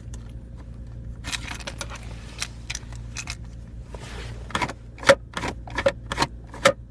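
Car ashtray lid being worked by hand: a series of sharp plastic clicks and rattles, coming faster, about two a second, in the second half, as the lid fails to latch shut. A steady low hum runs beneath.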